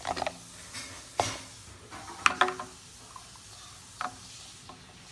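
Handling noise of small hard objects, a handful of separate knocks and clicks, the loudest about a second and two seconds in.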